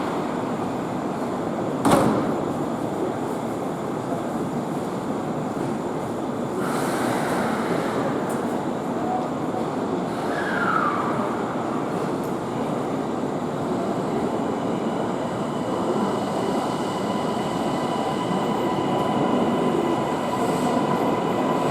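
Kintetsu 80000 series Hinotori express train running: a steady rumble with a sharp knock about two seconds in, and steady whining tones coming in over the second half.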